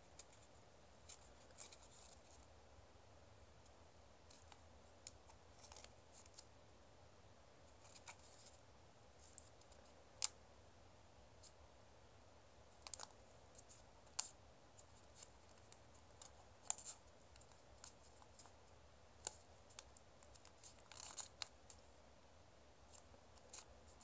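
Origami paper being folded and creased by hand: faint, scattered crackles and rustles over near-silent room tone, with a few sharper snaps and a brief flurry of crinkling near the end.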